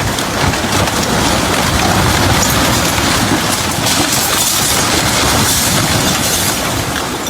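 Heavy rain pouring steadily, a dense, even hiss with a low rumble underneath.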